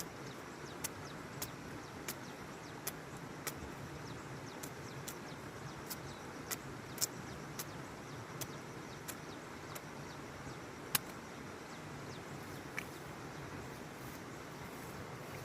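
Steady background noise with sharp clicks or ticks scattered irregularly, about one a second, the loudest about eleven seconds in.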